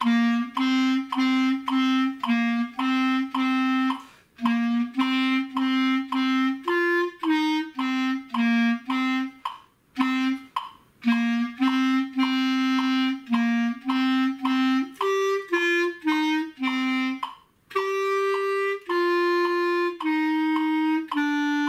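A solo clarinet playing a simple rock-style melody in its low register at 108 beats per minute: short, separated notes, many repeated on the same pitch, with a few brief breaks.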